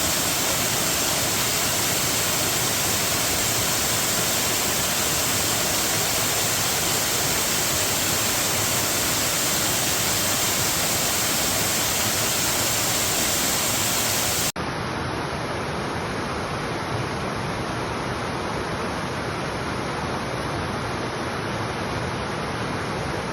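Rushing water, a steady full roar of noise. About two thirds of the way through it cuts abruptly to a slightly quieter, duller rush.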